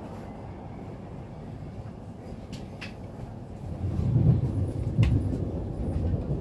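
Inside an InterCity train: a steady low rumble of wheels on track as it runs along. The rumble grows louder and heavier about four seconds in, with a few sharp clicks along the way.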